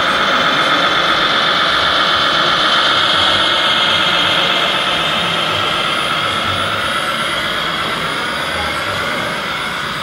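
A radio-controlled model MAN tipper truck's electric drive whining steadily and loudly as the truck moves, its pitch wavering a little in the last few seconds.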